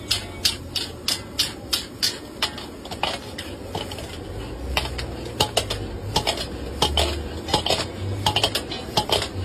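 Metal spatula clanging and scraping against a steel wok as rice is stir-fried and tossed: quick strikes about three a second, with a short lull a little past the middle, over a steady low rumble.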